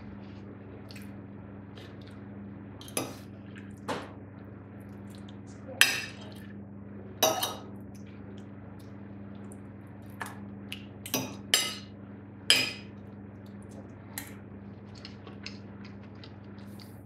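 Metal knife and fork clinking and scraping on a ceramic plate while cutting up fried egg, in about a dozen irregular strokes, over a faint steady hum.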